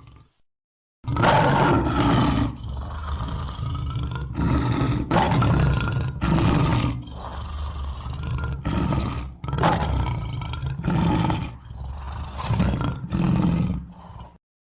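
Cartoon lion character's roar sound effect: a string of about ten loud roars and growls in quick succession, starting about a second in and stopping just before the end.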